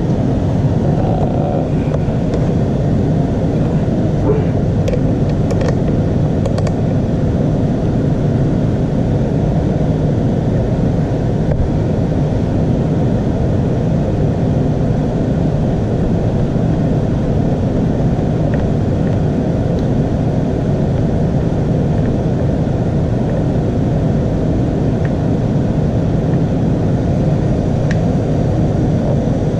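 Ducati 1199 Panigale's V-twin engine idling steadily, with no revs or changes in pitch.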